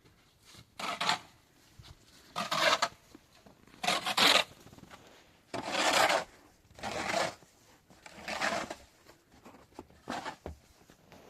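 Seven rhythmic scraping or rasping strokes, about one every second and a half.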